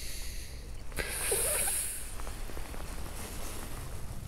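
A click, then a brief sharp hiss lasting under a second, about a second in, over faint steady background noise.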